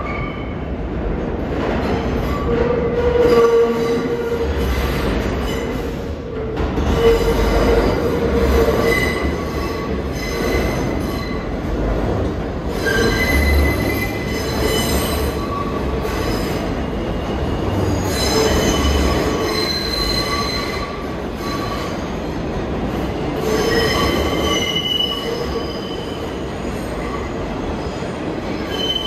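New York City subway train running through the station, its steel wheels squealing against the rails in several shifting high tones over a steady low rumble.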